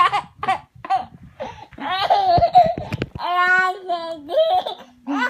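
Laughing in short, high-pitched bursts, with a toddler's laughter and babbling among it.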